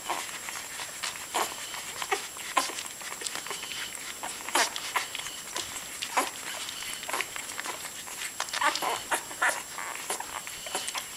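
Newborn chocolate Labrador puppies suckling at their mother, giving short, irregular squeaks and wet suckling noises.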